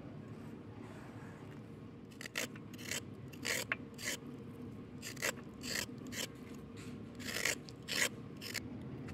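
Kitchen knife scraping the skin off a raw carrot in about a dozen short, uneven strokes, starting about two seconds in.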